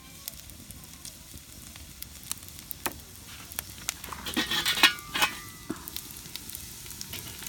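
Sliced onions sizzling as they fry in a pan over a wood fire, with scattered sharp crackles. About four seconds in comes a louder second or so of metal scraping and clatter as the pan is shifted on the wire grill grate.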